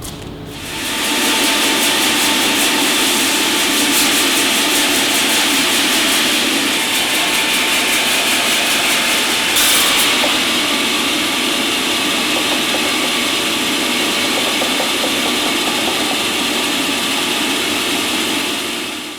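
Sawmill saw running steadily, a loud even mechanical noise that comes up about a second in and holds.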